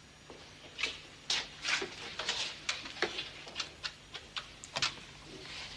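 A desk telephone being handled and dialled: a string of about a dozen irregular clicks and taps from its buttons and receiver, some with a dull knock.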